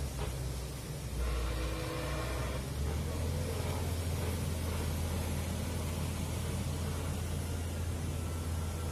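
Excavator's diesel engine running steadily with a deep hum, with a higher whine coming in between about one and three seconds in.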